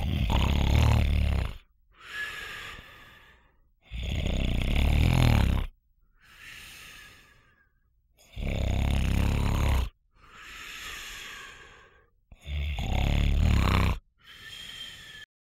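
A man snoring: four loud, rattling snores on the breath in, each followed by a softer, whistling breath out, about one cycle every four seconds.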